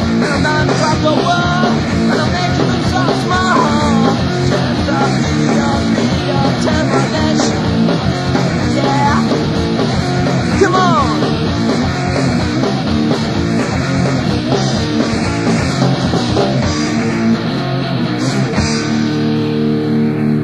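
Punk rock band playing a lo-fi demo recording: distorted electric guitar, bass and fast driving drums. About eighteen seconds in the drums drop out and a held guitar chord rings on.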